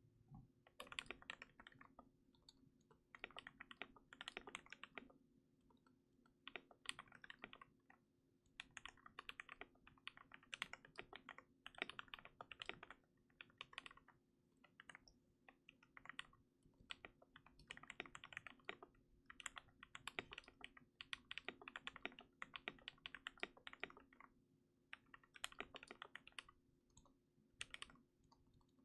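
Typing on a KBD67 MKII custom mechanical keyboard with lubed and filmed Gateron Yellow linear switches on a brass plate, in a silicone-dampened case. Quick runs of keystrokes come with short pauses between them.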